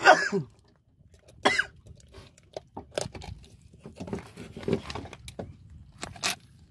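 Scattered knocks and clicks as a freshly caught trevally is handled on a boat deck and the hook and wire leader are worked out of its mouth. Two short cries that fall in pitch come at the start and about a second and a half in.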